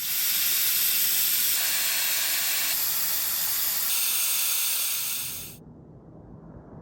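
Air hissing out of a Toyota 4Runner's tyre valve as the tyre is let down to a lower pressure for driving on dirt. It is a loud, steady hiss that stops abruptly about five and a half seconds in.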